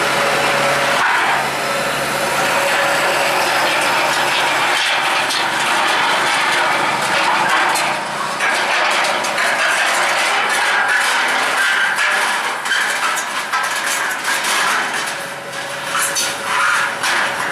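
Kubota DCX 100 rice combine harvester running on the move: a steady engine noise with mechanical rattling, and clicks that come more often in the second half.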